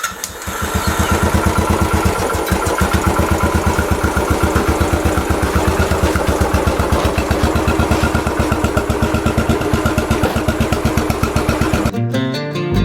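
Royal Enfield Classic 500's single-cylinder four-stroke engine idling with an even, rapid beat, stopping near the end.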